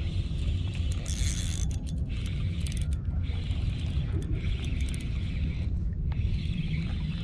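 Spinning reel being cranked in spurts of about a second each, reeling in a hooked fish against a bent rod, over a steady low wind rumble on the microphone.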